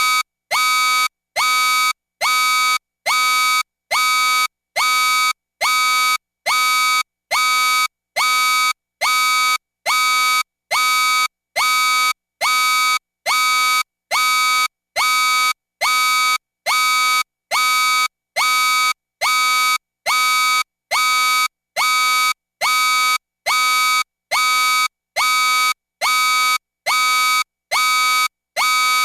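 Electronic danger-warning alarm: a harsh, buzzy tone pulsing on and off at an even pace, about three pulses every two seconds, each starting with a short upward swoop.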